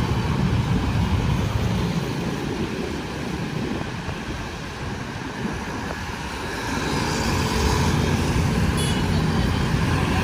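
Heavy city road traffic: engines running and tyres on the road in a continuous low rumble. It eases off in the middle and builds again from about seven seconds in, with a brief high squeak near the end.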